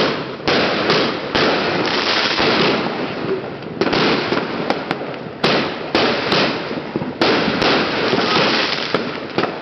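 A multi-shot fireworks cake firing repeatedly, about a dozen shots at uneven intervals, each a sudden bang followed by a fading rush of crackling sparks.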